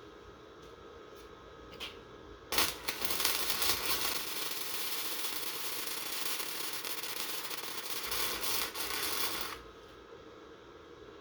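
Welding arc laying a practice bead: a steady crackling sizzle that starts sharply about two and a half seconds in and cuts off abruptly about seven seconds later. A faint click or two comes just before it.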